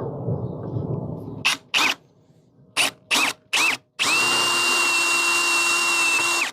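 Power drill with a step drill bit drilling out a blind rivet. After a low rumble, the drill gives five short trigger blips that each spin up and down, then runs steadily with an even whine for about two and a half seconds and stops abruptly.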